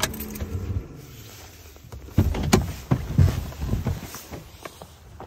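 Ford F-150 pickup's engine switched off, its steady hum winding down and dying within the first second. Then irregular thumps and rustles as a person climbs out of the cab, steps on the running board and down onto dry leaf litter.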